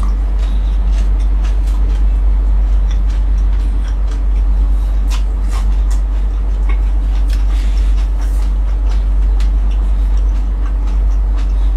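Steady low hum throughout, with scattered short clicks and crunches of someone eating and chewing crispy fried fish with rice.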